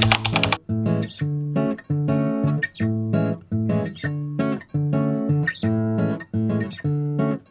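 Background music: acoustic guitar playing a steady rhythmic pattern of plucked chords.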